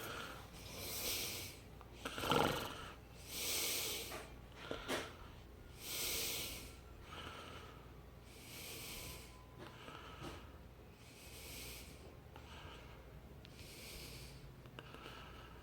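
A person breathing close to the microphone, about one breath every two and a half seconds, with a few handling clicks a few seconds in, over the low steady hum of a running electric box fan motor.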